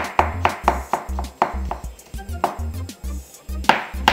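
Background music with a steady bass line, and a kitchen knife slicing a white mushroom on a plastic cutting board in quick, even strokes, about four a second, with a break of about a second and a half midway.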